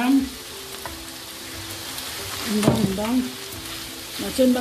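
Rice, mixed vegetables and prawns sizzling in a frying pan as they are stirred together with a spatula. A voice is heard briefly in the middle and again near the end.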